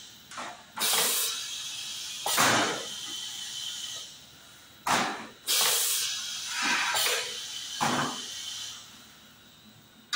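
Pneumatic lifting piston depositor cycling: sharp bursts of compressed-air hiss from its air valves and cylinders, about six in ten seconds, over a steady air hiss that fades out near the end.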